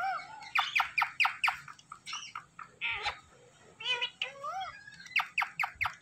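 Indian ringneck parrots calling: quick runs of short, sharp squawks at about five a second, mixed with rising-and-falling chirps.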